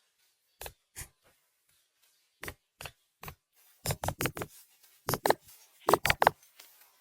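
A series of sharp knocks and taps: a few single ones at first, then quick clusters of three to five in the second half.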